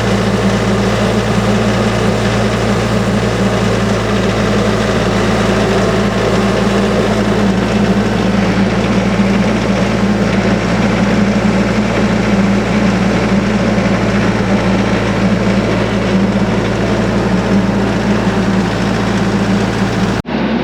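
Engine running at a constant speed, a loud, even drone that holds the same pitch throughout, with a brief break just before the end.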